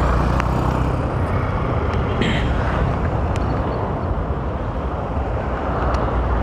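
Honda motorcycle riding slowly on a wet road: engine running under heavy wind rumble on the microphone, with tyre and traffic noise around it. A brief hiss rises about two seconds in.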